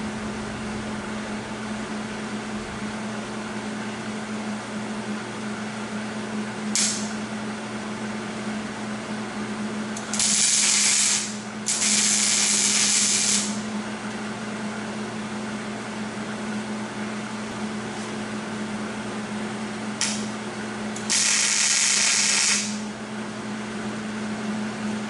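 MIG welder laying tack welds on sheet steel: five bursts of crackling hiss, two of them brief blips and the longest about two seconds, over a steady low hum.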